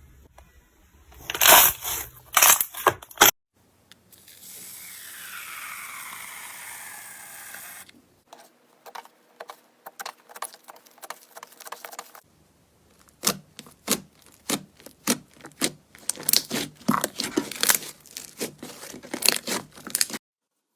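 Slime being handled: sharp crackles, pops and clicks in short clusters, with a steady hiss for a few seconds in the middle.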